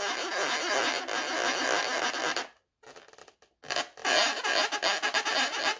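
Paint pen dragging across an inflated latex balloon as spots are drawn on it, a squeaky rubbing in two stretches with a short break in the middle.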